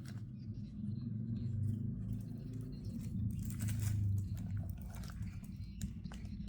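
Sneakers and their packaging being handled: scattered rustling, crinkling and light knocks, busiest around the middle, over a steady low hum.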